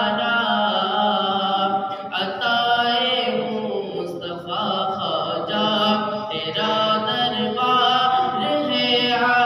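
A male voice singing a naat unaccompanied, a cappella, in long held and ornamented notes. The phrases break briefly about two, four and six seconds in.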